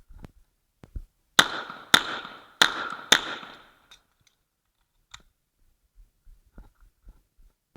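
Four shots from a 9 mm Uzi Pro pistol fired in quick succession, about half a second apart, each trailed by a short ringing echo. A few faint clicks and knocks come before and after the string.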